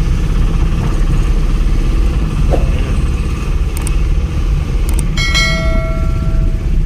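Steady low rumble of a van's engine and road noise, heard from inside the cabin while driving. Just after a couple of clicks, about five seconds in, a bell-like chime rings for about a second and a half over it.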